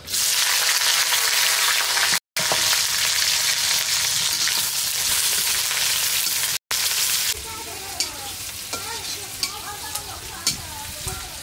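Food frying in hot oil in an iron karai, a loud steady sizzle that drops to a softer sizzle about seven seconds in. The sound cuts out twice, briefly.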